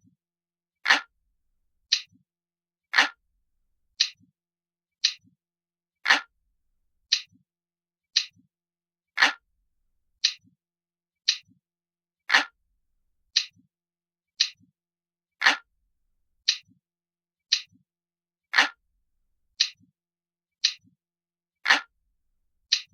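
Ticking clock sound, an analog-style tick-tick-tick at about one tick a second, with every third tick heavier and lower.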